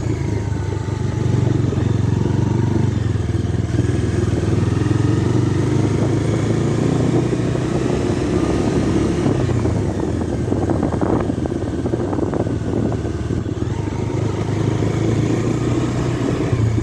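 Bajaj Dominar 250's single-cylinder engine running steadily, with slight changes in pitch.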